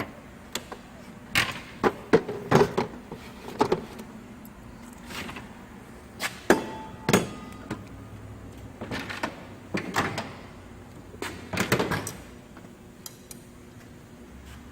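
Scattered knocks and clicks of a mechanic's tool cabinet being handled: a cabinet door and stored tools being moved, a dozen or so separate sharp knocks with pauses between them.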